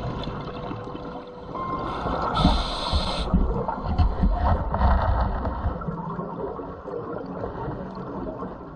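Underwater ambience picked up through a dive camera's housing: a low rumbling water noise, with a short hiss about two and a half seconds in and heavier rumbles just after.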